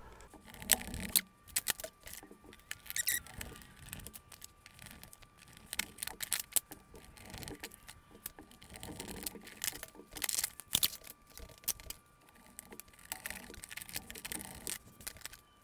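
Small screws being driven by hand into a plastic salt-gun housing with a screwdriver: scattered light clicks, ticks and scratches of the driver tip and plastic parts, in short spells with pauses between. A faint steady high tone hangs underneath throughout.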